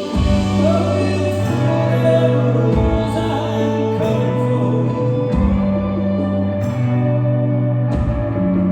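Indie folk-rock band playing live with singing. The full band comes in loudly right at the start, with a deep bass line holding each note for a second or two.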